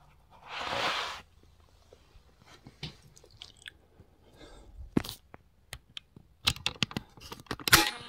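A short rushing noise about half a second in, then scattered small clicks and knocks of hard objects being handled, getting busier near the end.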